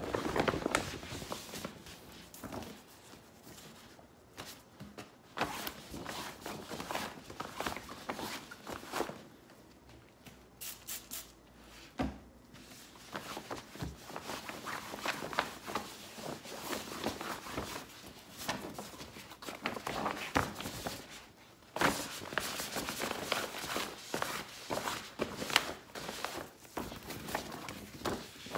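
Gloved hands handling and wiping a reusable shopping bag: its stiff sides rustle and rub in quick, irregular strokes, with a few louder crinkles and knocks as the bag is turned about.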